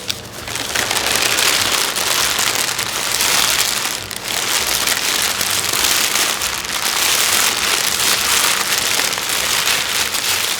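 A dense, steady crackling patter like heavy rain on a surface, easing briefly about four seconds in.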